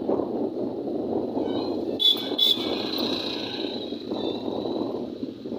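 Wind rush and engine noise from a moving motorcycle. About two seconds in, a vehicle horn toots twice in quick succession.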